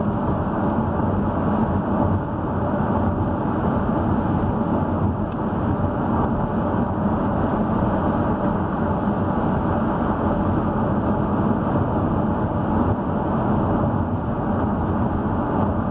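Steady road and engine noise inside a car's cabin while driving along a highway.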